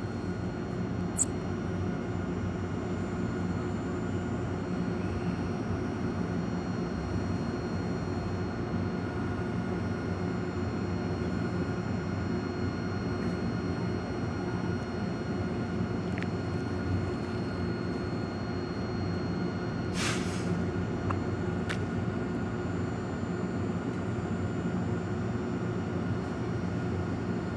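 Steady hum of a stationary Eizan Electric Railway 700-series railcar standing at the platform, its on-board equipment running with several steady tones. A short hiss comes about twenty seconds in.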